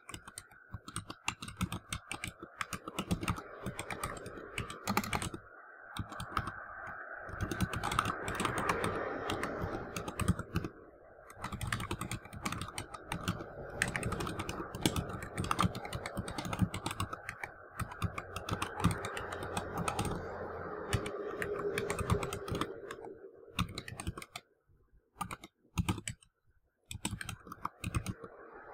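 Computer keyboard being typed on quickly, a fast run of key clicks as word after word is entered, with a short pause a few seconds before the end.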